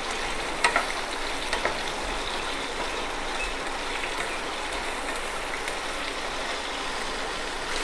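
Chopped onion, tomato and peanuts sizzling steadily in hot oil in a kadai as they are stirred with a wooden spatula, with two light knocks of the spatula against the pan near the start.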